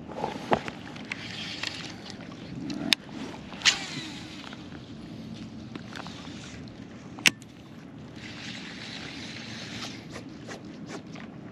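Choppy bay water lapping and sloshing around a wading angler, with wind on the microphone and a few sharp clicks, the loudest about seven seconds in.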